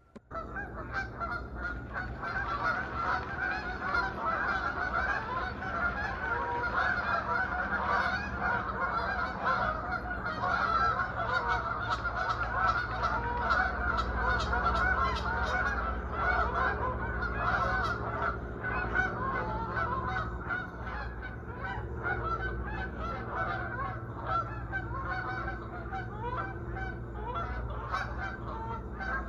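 A flock of geese on the water honking continuously: many overlapping calls, a bit sparser near the end.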